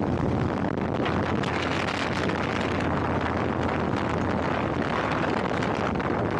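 A vehicle on the move: a steady low engine and road rumble under wind rushing over the microphone.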